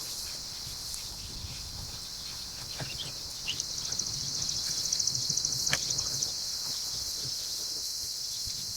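Outdoor ambience of a steady, high-pitched insect chorus. About three and a half seconds in, a fast pulsing trill joins it for a few seconds, with a few light clicks.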